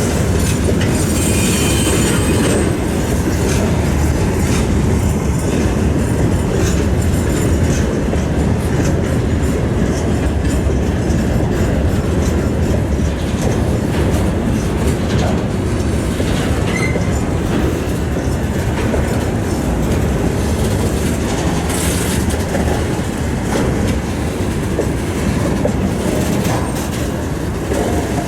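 Freight train rolling past at low speed: a steady rumble of wagons, with wheels clattering over rail joints. Brief high wheel squeals come about a second in and again near the 22-second mark.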